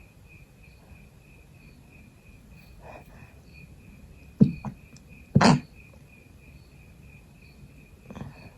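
A person sneezing with a cold. About four and a half seconds in come a short, clipped stifled sneeze and a quick second catch. About a second later comes a louder, breathier sneeze.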